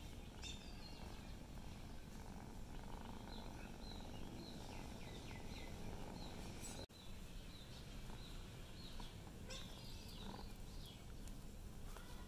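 A cat purring steadily, with small birds chirping faintly in the background. The sound drops out for an instant about seven seconds in.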